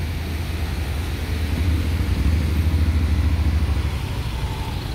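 Large maxi-scooter's engine running at low speed as it moves off, a steady low hum that grows a little louder midway.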